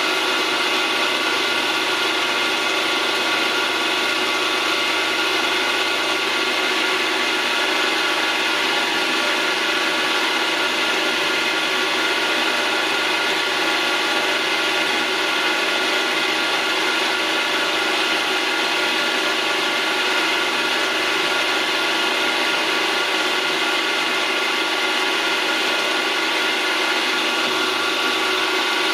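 Vertical milling machine running steadily at one speed, a constant mechanical hum with several steady high tones.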